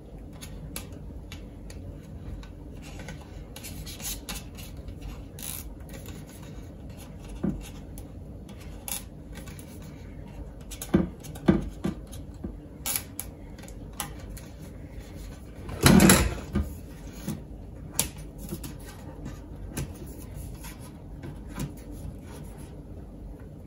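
Handling noises from working insulated wire around a plastic pipe coil former on a wooden worktop: scattered small clicks, taps and rubbing, with one louder knock about two-thirds of the way through.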